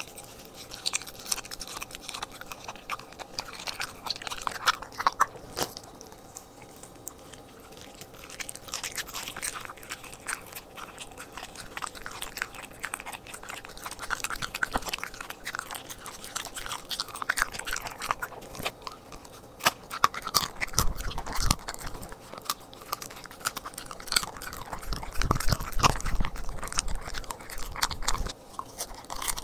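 A corgi biting and chewing raw duck breast held in a hand, a steady run of irregular bites and crunches, busier over the last ten seconds.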